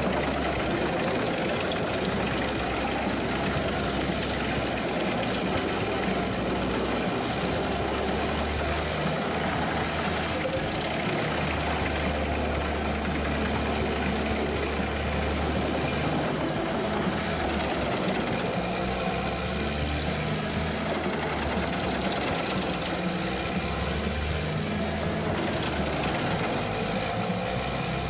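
Pezzolato PTH 1200/660M wood chipper running, its Caterpillar C9 diesel engine droning steadily under a constant mechanical noise, with a low hum that swells and fades at times.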